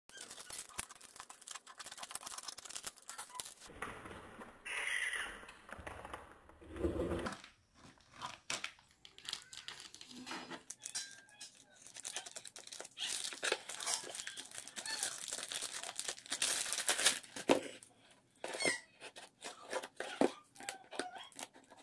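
Plastic courier mailer bag crinkling and tearing as it is cut with scissors and ripped open, in many short rustles and rips, then handling of the cardboard box inside.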